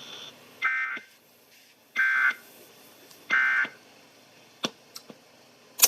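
Three short bursts of EAS digital data tones, the end-of-message code that closes a NOAA Weather Radio routine weekly test, heard through a SAGE EAS decoder's speaker and evenly spaced a little over a second apart. A few sharp clicks follow near the end.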